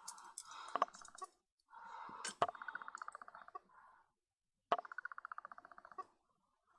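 Threaded part of a Vivitar Series 1 70-210mm zoom lens being unscrewed by hand: a rapid, fine ratcheting rasp of the threads in two runs, with a few sharp clicks.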